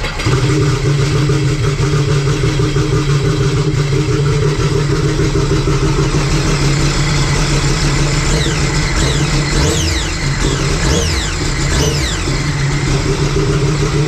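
Freshly built Sea-Doo RXP-X race jet ski engine firing up right away and running steadily and loud. Near the middle the note dips and a few whines fall away. It is the first start of the new motor, on pump gas, and it starts and runs, smoking a little from the build oil.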